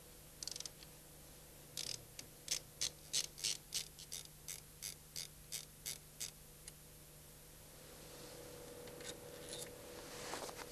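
A hand tool, likely a ratchet wrench, clicking about a dozen times at roughly three clicks a second as the clamping block of a PD TDI unit injector is undone. A faint steady hum runs underneath.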